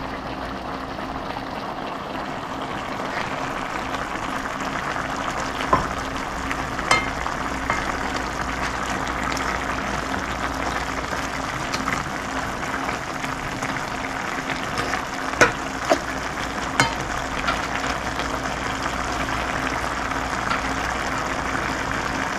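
Chicken, onions and bell peppers in teriyaki sauce sizzling steadily in a frying pan, with a few sharp clicks of a metal fork against the pan as it stirs, in two clusters about a third of the way in and past the middle.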